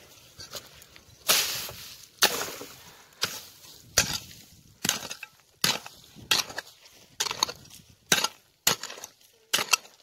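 Pickaxe blade striking hard into dry, stony soil, about a dozen blows roughly a second apart and coming a little quicker near the end. Each blow is followed by a short scatter of loosened clods and stones.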